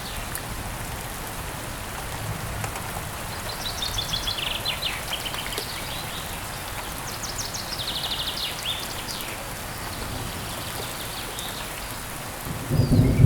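Steady rain with birds giving rapid high trilling calls twice in the middle. Near the end a loud low rumble of thunder begins.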